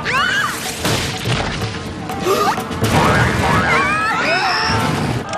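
Cartoon action soundtrack: music under a run of crashes and thwacks, with sliding high-pitched cries near the start and again late on.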